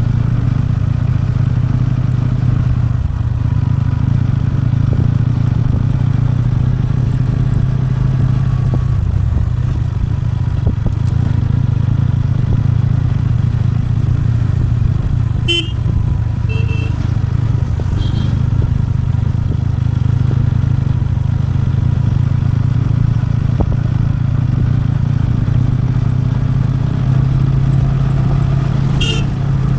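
TVS Ronin's single-cylinder engine running steadily on the move. A few short vehicle horn beeps come about halfway through and again near the end.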